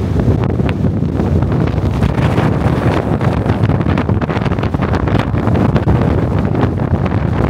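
Strong wind buffeting the camera's microphone: a loud, continuous low rumble with rapid, irregular gusting.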